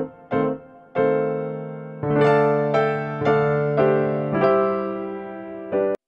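Background music: an electric piano playing a light melody, notes struck about every half second and left to ring out, with a brief break right at the end.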